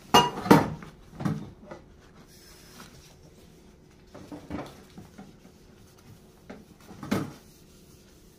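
Kitchen clatter of dishes and mugs being handled at the counter and sink: two loud knocks right at the start, then a few scattered smaller knocks and clinks.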